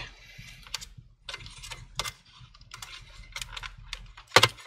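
Light clicks and rattles of plastic wire-harness connectors and cables being handled inside a computer, with one sharper, louder click near the end.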